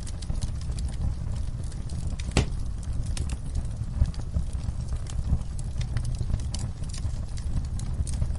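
Wood fire crackling in a fireplace: irregular sharp pops and snaps over a steady low rumble of the flames, with one louder pop about two and a half seconds in.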